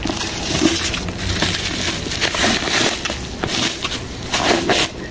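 Plastic bubble-wrap packaging rustling and crinkling irregularly as it is handled and pulled off a boxed kalimba.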